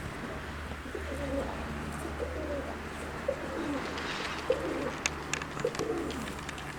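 Domestic pigeons cooing, one call after another, with a few sharp clicks in the second half over a steady low hum.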